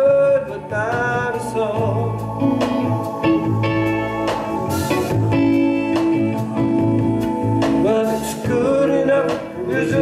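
Live band playing an instrumental passage of the song: electric bass, keyboards and drums, with a lead line bending in pitch over steady bass notes.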